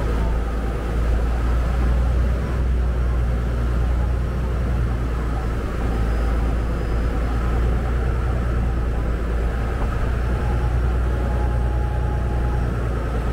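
Saen Saep canal express boat's engine running steadily: a constant, loud low rumble.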